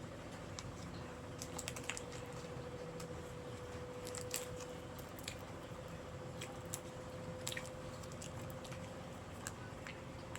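Close-up chewing of stir-fried beef noodles: irregular wet mouth clicks and smacks, with a faint steady hum underneath.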